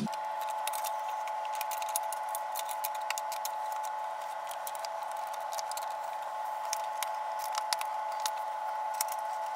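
Small plastic clicks and rattles, many in quick succession, as the plastic rings and pedal bracket are handled and fitted around the base of a Dometic RV toilet, over a steady hum.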